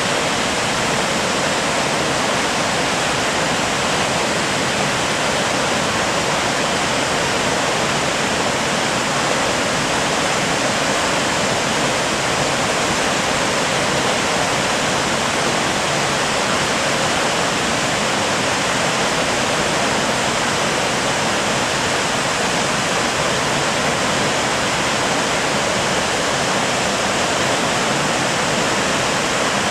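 Waterfall: a steady, unbroken rush of falling water, loud and even throughout.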